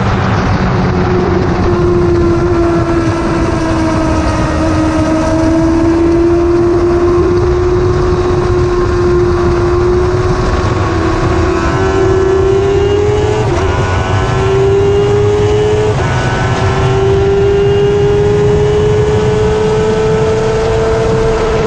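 1000cc superbike's inline-four engine running hard at high revs on a race track, over loud wind rush on the helmet-cam microphone. The engine note eases a little, holds, then climbs steadily under acceleration, with two quick upshifts in the second half where the pitch dips and climbs again.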